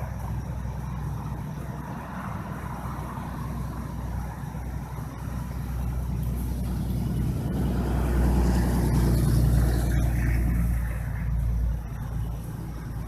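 A motor vehicle running with a steady low rumble. It grows louder about halfway through and drops back near the end.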